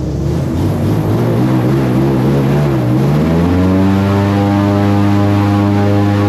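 Airboat's engine and air propeller running up for take-off, loud: the pitch wavers at first, rises about three seconds in, then holds steady at high power.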